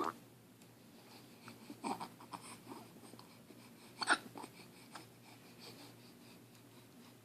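A nine-week-old baby hiccuping: three short, sharp hiccups about two seconds apart, the last the loudest, with soft breathing sounds between.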